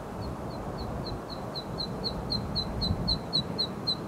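A bird calling in a fast, even series of short, high notes, about four a second, growing louder as it goes. Under it is a steady low rumble of wind on the microphone.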